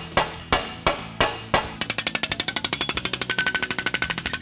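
A hammer striking sheet metal over a steel post dolly, about three sharp blows a second, smoothing and rounding over the curve of a motorcycle gas tank side panel. About two seconds in, the blows turn into a rapid even run of about ten strikes a second, sped up in playback.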